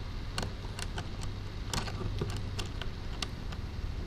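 Small metal hardware clicking as the stainless steel rudder cable's fitting is handled and set onto the rudder hardware, with light, uneven clicks about two a second over a steady low hum.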